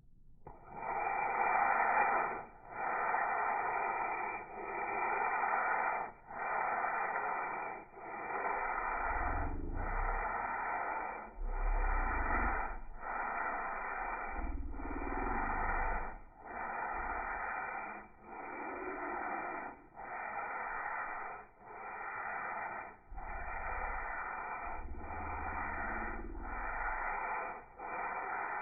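Sandpaper rubbed back and forth by hand over a cured urethane coat on a wooden box, a rasping stroke about once a second with a brief pause at each change of direction, and occasional low bumps from the box being handled.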